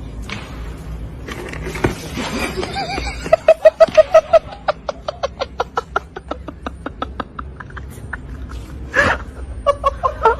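A person laughing hard in a fast run of high-pitched 'ha' bursts, loudest a little over three seconds in and fading over the next few seconds, with a sharp loud burst about nine seconds in and more laughter near the end.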